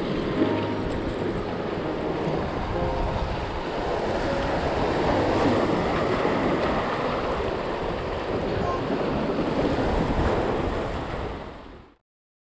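Sea waves breaking and washing over a rocky shore, with wind buffeting the microphone; the sound fades out near the end.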